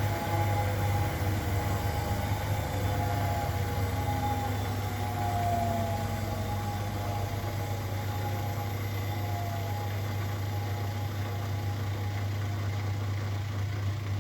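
Zanker EFX 4875 washing machine in its final spin: a steady low motor hum with a faint whine that slowly falls in pitch as the drum runs down. The sound cuts off abruptly at the very end.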